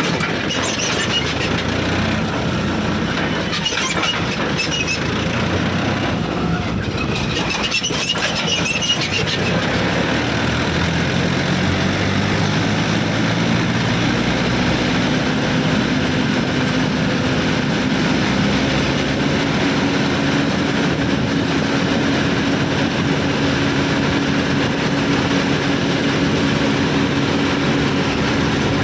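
A heavy diesel vehicle engine. For the first several seconds there is clattering with metallic squeaks. From about ten seconds in, a steady engine note rises slightly in pitch and then holds.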